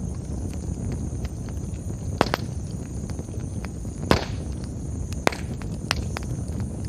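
Wood campfire crackling, with a few sharp pops, the loudest about two and four seconds in, over a steady low rumble of the burning.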